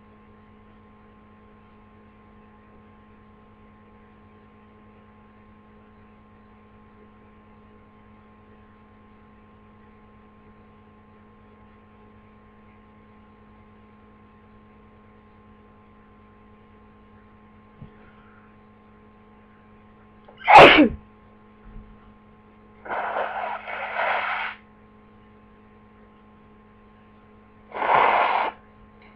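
A person with the flu sneezes once, loud and sharp and falling in pitch, after a long stretch of steady electrical hum. Two shorter, noisier bursts follow a few seconds apart.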